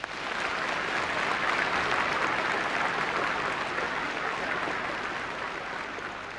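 Large audience applauding. It builds up over the first two seconds, then slowly fades toward the end.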